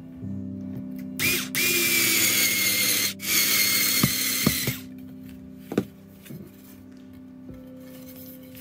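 Small cordless electric screwdriver driving a screw through a metal angle joiner into wood: the motor whines in three short runs between about one and five seconds in. A few knocks follow, over background music.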